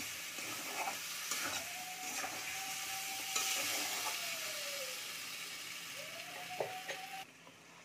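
Potatoes and spice paste sizzling in a metal kadai while they are stirred with a steel spatula, frying the aloo dum masala until the oil separates. A thin squealing tone rises and falls twice, and there are a few scraping knocks. The sizzling cuts off abruptly about seven seconds in.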